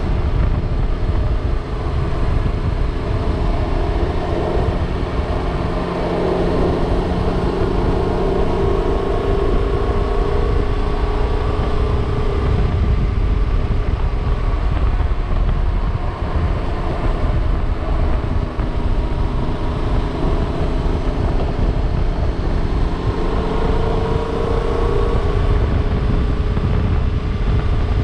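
Yamaha motorcycle engine running at a steady road speed in fourth gear, heard from the rider's position under heavy wind rumble. The engine note rises and falls gently a few times.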